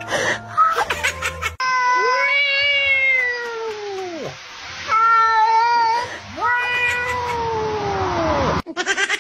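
Cat giving three long, drawn-out yowling meows. The first and last swell up and then slide slowly down in pitch; the middle one is shorter and level. A short patter of clicks comes first.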